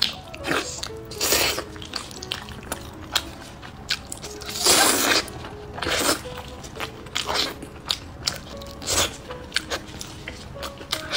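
Eating sounds of biting and chewing braised pork knuckle, wet and irregular, with one longer, louder moment about halfway through, over soft background music.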